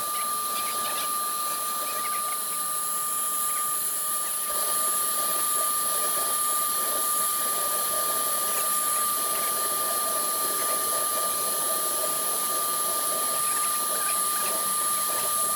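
Woodworking CNC router's spindle running with a steady high whine over an even hiss while it engraves and cuts MDF. The sound gets a little louder about four seconds in.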